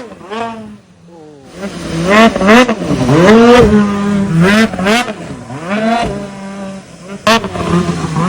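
Snowmobile engine revving hard and repeatedly, its pitch climbing and falling with the throttle. It drops away briefly about a second in, then comes back up.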